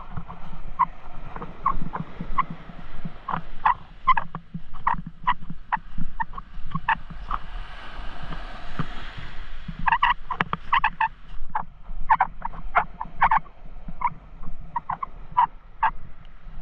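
Footsteps crunching on a beach of coarse coral rubble and shell, in an irregular stream of short crunches that comes thicker in the second half. A small wave washes up the shore about eight seconds in.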